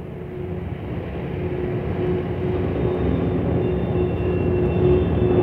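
Steady mechanical rumble of drillship machinery with a faint steady hum, growing gradually louder.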